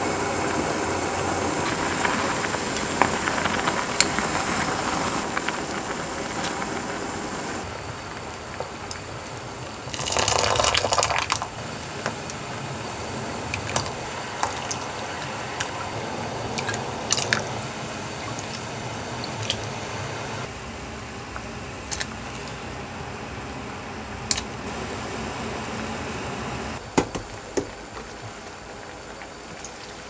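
Soy-sauce braising liquid with eggs and shishito peppers bubbling at a boil in a saucepan. After a cut, a pot of broth simmers more quietly. A short loud burst of noise comes about ten seconds in, and light clicks are scattered through.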